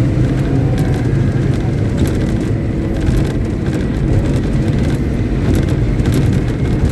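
Caterpillar 777D haul truck's V8 diesel engine running steadily at a constant speed during a stationary ground test, a loud even low drone with scattered faint clicks above it.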